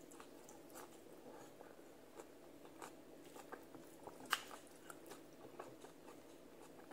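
Close-up chewing of a mouthful of rice and sautéed green mustard, eaten by hand: soft scattered mouth clicks and smacks, with one sharper click about four seconds in, over a faint steady hum.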